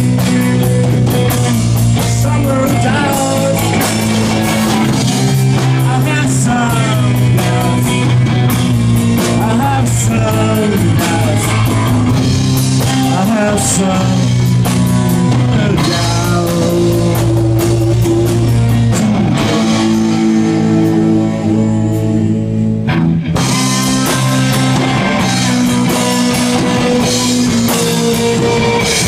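Live rock band playing loud: electric guitar, electric bass and drum kit. The sound thins out for a few seconds just past the middle, then the full band comes back in.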